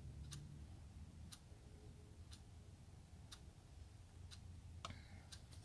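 Faint, steady ticking of a clock, one tick a second, over near silence, with a soft knock or two near the end.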